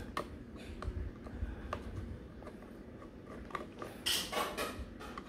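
Small screwdriver working the screws in the bottom panel of a Dell Rugged laptop: scattered light clicks and ticks, with a louder scraping rasp about four seconds in.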